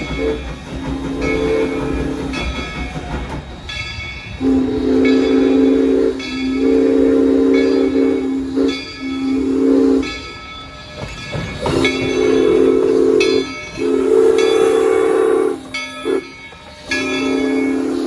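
Train horn sounding a chord of several notes in a string of long and short blasts over the rumble of a passing train. Near the end the blasts fall into long, long, short, long, the grade-crossing signal.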